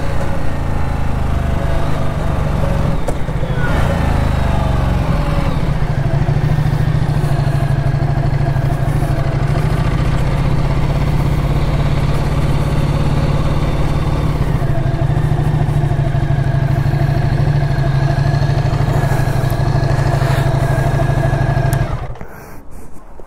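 Ducati Diavel 1260 S's 1262 cc Testastretta V-twin engine, heard from the rider's seat. Its note falls as the bike slows over the first few seconds, then it runs steadily at low revs until it cuts off near the end.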